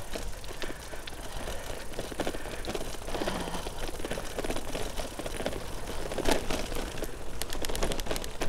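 Wind buffeting the microphone and road noise while riding a bicycle, a steady low rumble, with a quick run of ticks near the end.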